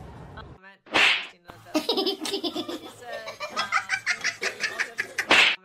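Someone laughing hard: a loud breathy burst about a second in, then a long run of quick rhythmic laughs, and another loud breathy burst near the end.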